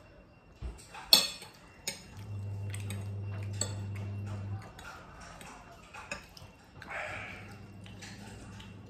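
Metal forks clinking and scraping on glass plates as noodles are eaten: scattered sharp clinks, the loudest about a second in. A low steady hum runs for about two seconds in the middle.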